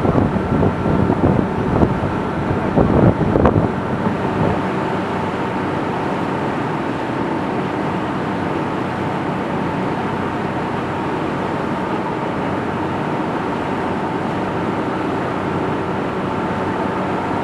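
Cruise boat's engines running with a steady drone. Gusts of wind buffet the microphone for the first few seconds.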